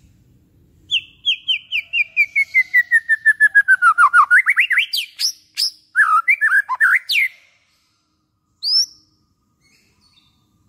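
White-rumped shama singing: a fast run of about twenty notes falling steadily in pitch, then several quick rising whistles and a jumble of varied phrases that stop about seven seconds in. One more short rising note follows a little later.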